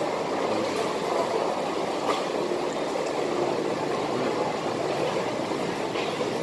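Steady background din of a hawker centre food court, with a faint click about two seconds in.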